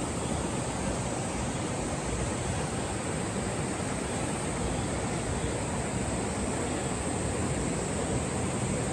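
Steady rushing of water in a mountain valley stream.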